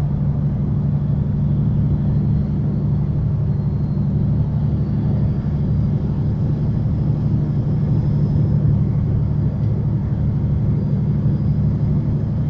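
Semi-truck's diesel engine and road noise, a steady low drone while driving at an even speed.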